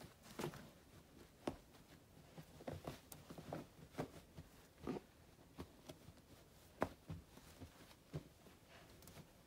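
Standard poodle in labor digging and pawing at towels in a whelping pool: irregular faint scratches and rustles of fabric. This is nesting behaviour before whelping.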